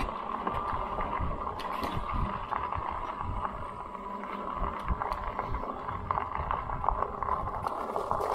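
Riding a Lectric XP folding e-bike: wind buffets the microphone in an uneven rumble over the steady sound of the tyres rolling, with scattered light clicks and rattles.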